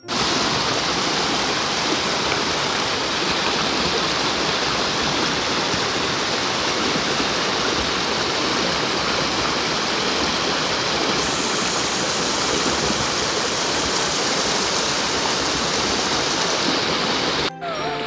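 Shallow stream water rushing and splashing over rocks, a steady loud rush that breaks off abruptly near the end.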